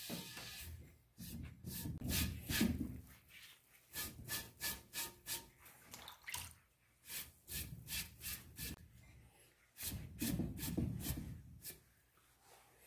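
Wet sponge rubbing and wiping black glaze over the surface of a tall clay vase, in two longer stretches of scraping strokes. In between comes a run of short wet dabs and squelches as the sponge is worked in a bowl of liquid glaze.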